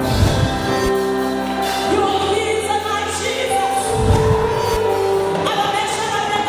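Gospel music: a woman's voice holding long notes over instrumental backing with steady bass notes, and low drum thuds at the start and again about four seconds in.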